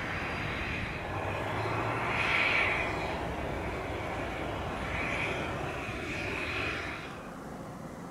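Steady jet whine and rush from a Boeing 737-400 on the ground, swelling and easing a few times and dropping off about seven seconds in.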